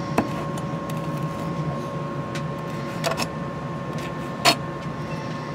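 A chef's knife chopping parsley on a plastic cutting board: a few sharp knocks of the blade spaced over several seconds, the loudest near the end, over a steady hum in the room.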